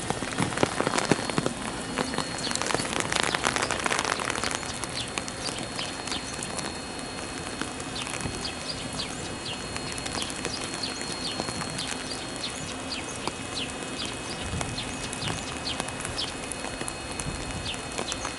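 Rain falling, with many drops pattering and clicking close by. It is heavier for the first few seconds, then eases to a steady patter over a faint steady hum.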